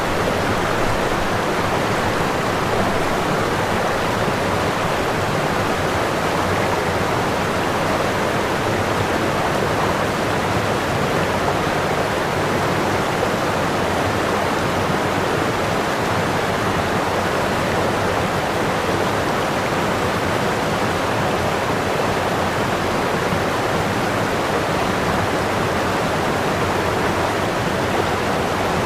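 Running water making a steady, even rush with no breaks or splashes.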